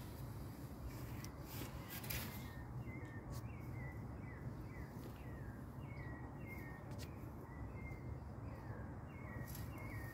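An animal chirping steadily, short calls about two a second, each dropping slightly in pitch, over a low steady rumble, with a few faint clicks.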